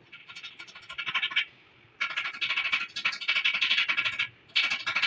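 Rapid metallic scratching in three bursts, the longest in the middle: hand tools working on a steering tie-rod end.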